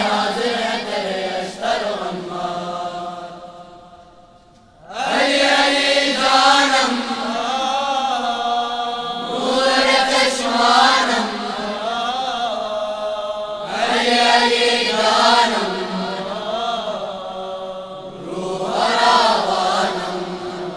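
A chorus of boys' and young men's voices chanting a devotional tarana together in long sung phrases. The voices die away about four seconds in and come back strongly about a second later.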